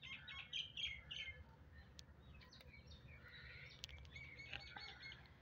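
Birds chirping faintly: a quick run of short chirps in the first second or so, and another from about halfway through.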